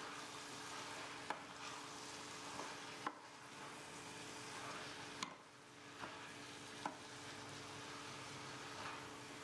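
Wooden spoon stirring spaghetti squash, chickpeas and spinach in a stainless steel sauté pan over the heat: a soft, steady sizzle with four sharp knocks of the spoon against the pan.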